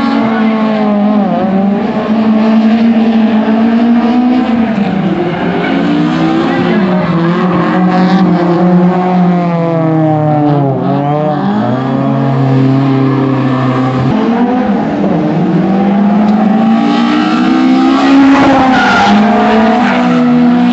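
Two drift cars running in tandem, their engines revving up and down as they slide, with tyre squeal. The engine pitch drops and climbs again about halfway through.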